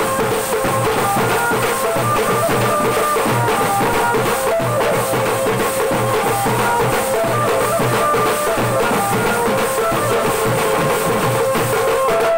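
Tasha party drum band playing: several large steel-shelled drums beaten with sticks in a fast, dense rhythm, loud and steady throughout, with a melody of held notes stepping up and down over the drumming.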